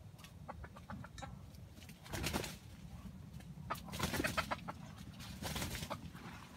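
A rooster calling with short clucks: a few faint ones at first, then three louder spells of calling about two, four and five and a half seconds in.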